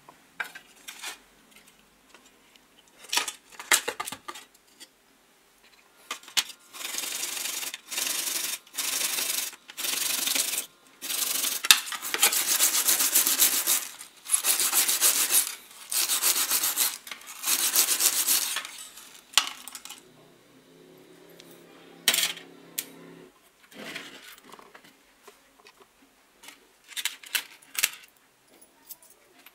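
A stiff brush scrubbing a small part of the impact driver clean in a tray of cleaning liquid: a run of about eight rasping strokes, each around a second long. Short clinks of small metal parts come before and after the scrubbing.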